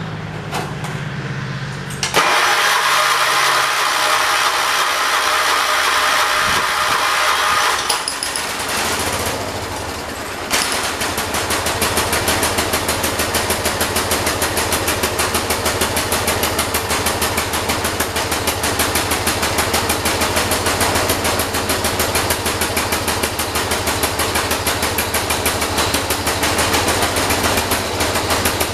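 John Deere 212 lawn tractor's single-cylinder Kohler engine cranking for several seconds, then catching about ten seconds in and running with a rapid, even beat of firing strokes. The engine has trouble starting and running without the choke, and its carburetor is being adjusted.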